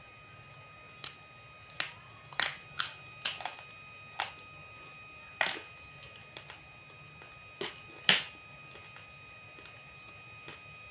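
Roasted multani mitti (fuller's earth clay) pieces cracking and crunching in about a dozen sharp, irregular snaps, the loudest near the end, over a faint steady whine.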